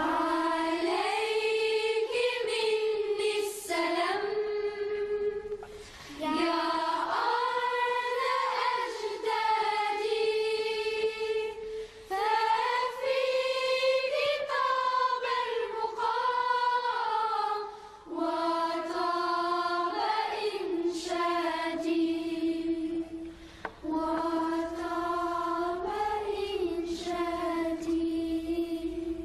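Background song: a group of voices singing a slow melody in long held notes, with short breaks between phrases.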